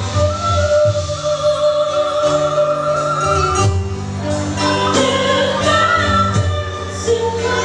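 Live traditional music: a singing voice holds long, wavering notes over instrumental accompaniment with a steady low pulse.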